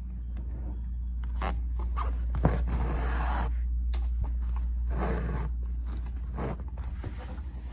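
Embroidery thread being drawn through fabric and under stitches, heard as several scraping swishes, the longest about three seconds in. A steady low hum runs underneath.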